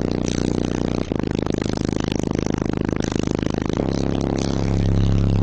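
Wolfram Audio car subwoofers playing held deep bass notes at very high level, the cones at heavy excursion. The note changes pitch about a second in and again near four seconds, and grows louder after that.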